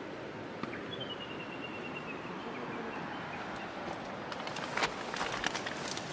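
Quiet outdoor morning air with a bird giving a quick series of falling notes about a second in. From about four seconds in come rustles and clicks of someone moving and handling things inside a nylon tent.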